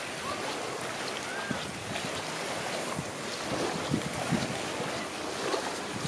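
Seaside ambience: small waves lapping steadily at the shore, with some wind on the microphone.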